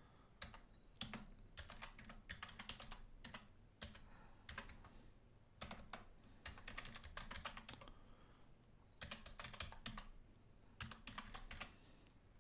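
Faint typing on a computer keyboard: keystrokes in quick runs separated by short pauses, as a command is entered.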